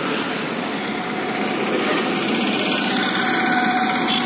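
Street traffic: the small engines of motor scooters and an auto-rickshaw running as they pass close by, a steady engine hum.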